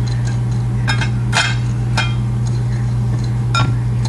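About five light clinks and knocks of a bowl and its contents being handled while breading cheese sticks, over a steady low hum.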